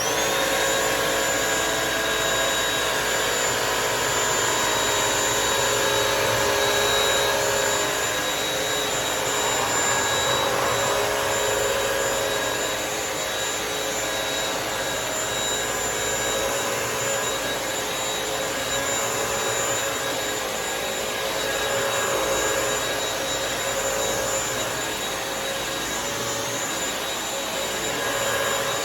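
Bissell CrossWave wet-dry floor cleaner starting up abruptly and running steadily: a motor hiss with a steady high whine over it, as the machine wet-cleans a spilled food and juice mess.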